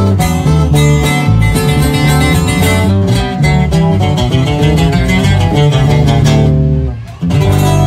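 Two acoustic guitars playing together live, quick picked melody runs over chord accompaniment. The playing breaks off for a moment about seven seconds in, then a new chord rings out.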